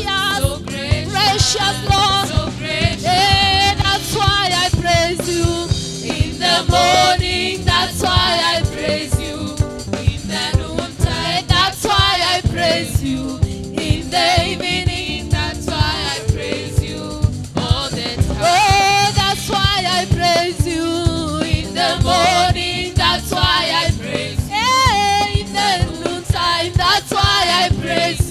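Live gospel praise song: a woman's lead vocal sung with vibrato, with backing singers, over a band with a steady drum-kit beat.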